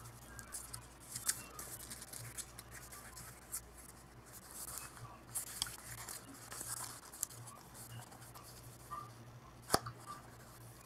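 Faint handling of a cardboard coin box: dry scraping, rubbing and small clicks of cardboard parts, over a steady low hum. One sharper click comes near the end.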